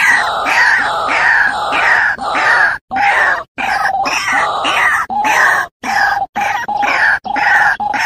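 White-breasted waterhen calls played as a bird lure: repeated harsh notes, about two to three a second, each falling in pitch. The calling is broken by several short, sudden gaps.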